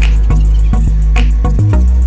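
Background music: a song with heavy bass and a steady beat.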